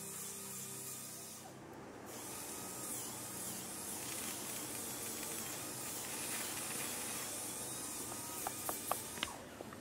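Title-sequence sound design: a steady airy hiss with faint sustained musical tones beneath it, and a few small clicks near the end.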